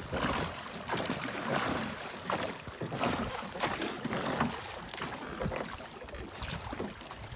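River water flowing and splashing, with irregular short splashes.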